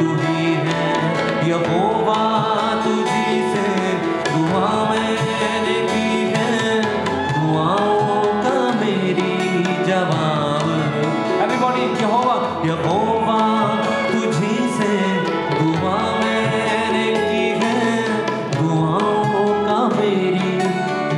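Live devotional music, with tabla keeping the rhythm under a gliding melodic line.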